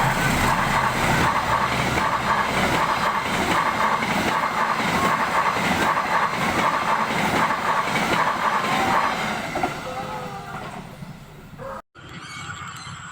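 Train passing in heavy rain, its wheels clacking in an even rhythm of about two beats a second; it fades after about nine seconds.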